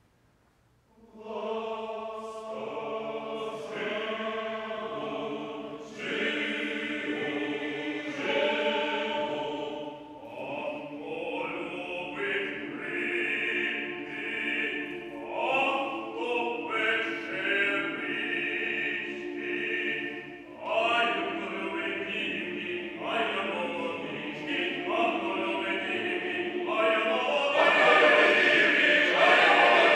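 Male choir singing with a male soloist. After a brief silent pause, the voices enter about a second in and swell louder near the end.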